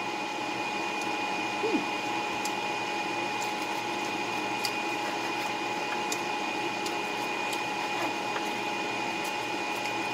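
A steady machine hum with a thin, constant whine runs throughout. Light clicks come now and then, a few seconds apart, from a knife slicing sushi rolls on a bamboo cutting board.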